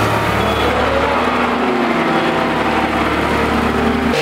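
An engine running steadily, its pitch shifting a little.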